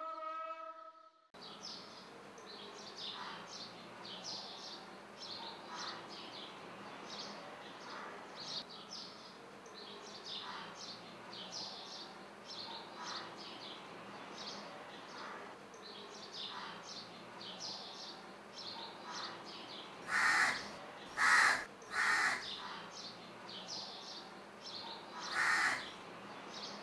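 Outdoor ambience with small birds chirping over and over, and a crow cawing three times in quick succession about twenty seconds in and once more near the end.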